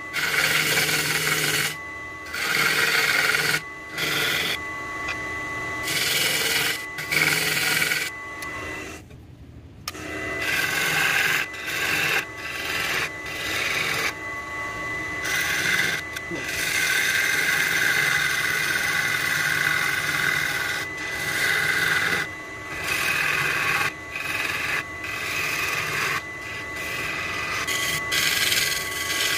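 A turning tool cutting a maple vase spinning on a wood lathe. It scrapes and shaves in repeated passes of a second or two, with short breaks between them. Under the cuts runs a steady high whine.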